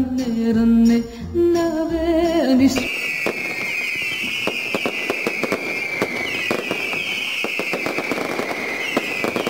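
Background music ends about three seconds in, cut straight over to a fireworks sound: dense crackling with a high whistle slowly falling in pitch.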